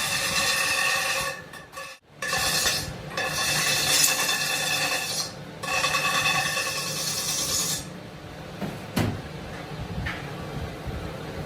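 Angle grinder grinding metal in three passes, with short breaks about two and five and a half seconds in. It stops near eight seconds in, leaving a lower hum and a single knock about a second later.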